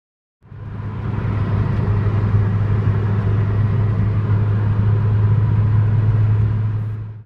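Steady low engine drone and road noise heard inside a car's cabin cruising at motorway speed. It fades in just after the start and fades out at the end.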